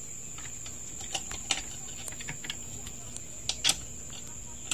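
Scattered light clicks and knocks of hands handling a gaming chair's metal gas-lift cylinder and seat mechanism plate during assembly. The loudest come about a second and a half in and again at about three and a half seconds. A steady high thin whine sounds behind them.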